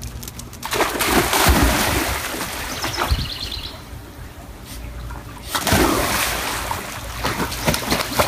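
Dogs splashing into and through swimming-pool water after a frisbee: two loud bursts of splashing, one about a second in and another a little after five seconds, with sloshing between.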